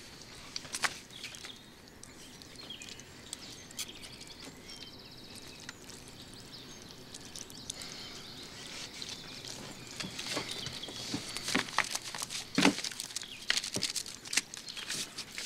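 Paper rustling and crinkling as mail and loose sheets are handled on a table, busier and louder in the last few seconds as a sheet is torn, with faint bird chirps at times.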